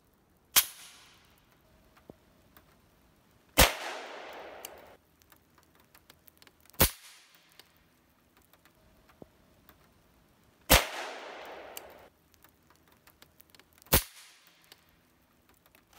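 Suppressed .308 AirForce Texan big-bore air rifle with a DonnyFL Emperor suppressor: five sharp cracks about three seconds apart, the second and fourth trailing off over about a second. Faint ticks of rain hitting the shooting table are audible between them.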